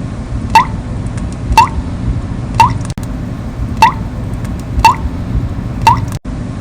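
Water dripping from a leaky tap, one drop about every second, each a short plink that rises in pitch, over a steady low background rumble.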